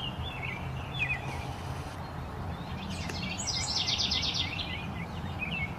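Songbirds chirping, short repeated chirps throughout, with a fast high trill from one bird from about three and a half seconds in to nearly five seconds, over a steady low background hum.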